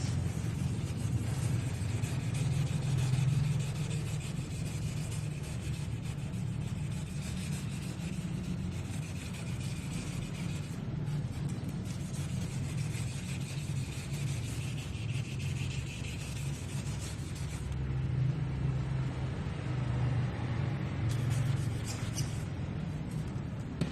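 Power sander running steadily against a powder-coated surface, a low motor hum with a wavering rubbing hiss of the abrasive on the finish.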